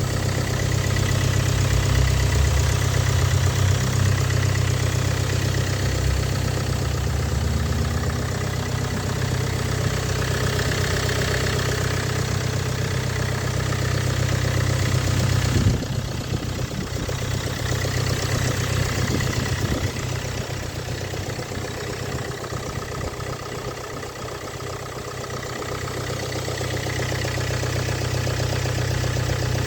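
Engine idling from cold with a knock, the knock that shows when the engine is cold. The running is steady, then drops suddenly in level about halfway through and slowly comes back up.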